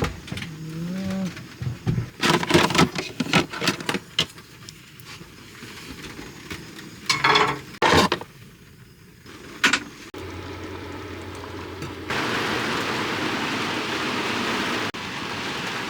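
A series of irregular knocks and clatters, then a steady rushing noise from about ten seconds in that grows louder about two seconds later.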